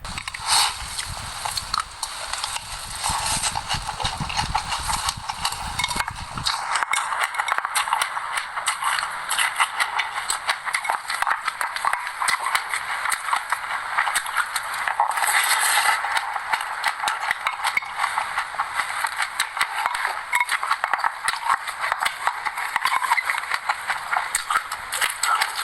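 Dense, rapid crackling and crunching of sesame seeds close to the microphone, a continuous run of small clicks.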